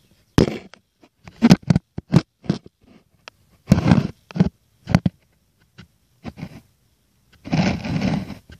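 Irregular rubbing and scraping noises right at the microphone: about a dozen short ones, then a longer one lasting about a second near the end.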